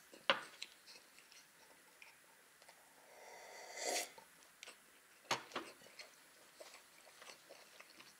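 Soft close-up eating sounds: quiet chewing and lip smacks, and a swelling gulp as a drink is swallowed from a glass jar near four seconds in. A couple of sharp knocks follow shortly after.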